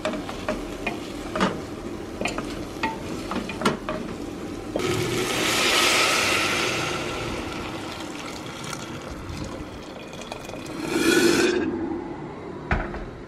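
A metal utensil knocks and clinks against a pot, then about five seconds in boiling water is poured into a hot pan of sautéed seasonings, setting off a loud hiss that slowly fades. A second, shorter pour near the end stops abruptly.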